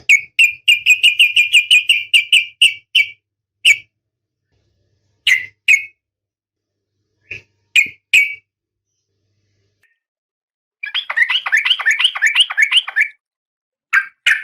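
Female oriental magpie-robin calling: a fast run of short, even chirps for about three seconds, then single and paired chirps with silent gaps between, and a second rapid run of downward-sliding notes about eleven seconds in.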